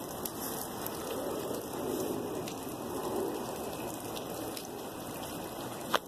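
Wet snow and small ice crystals pattering on dry grass and dead leaves: a steady, even hiss with a few faint ticks.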